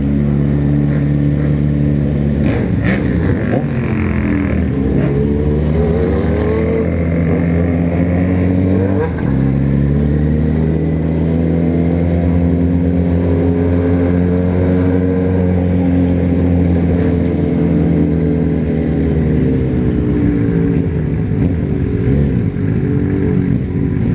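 Motorcycle engine heard from the rider's own bike while riding. It pulls up through the revs, drops sharply at a gear change about nine seconds in, climbs again, then eases off as the bike slows near the end.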